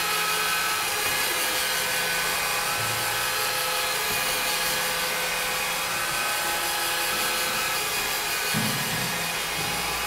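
Eureka Forbes robotic vacuum cleaner running, a steady whir of its motors with a faint high whine.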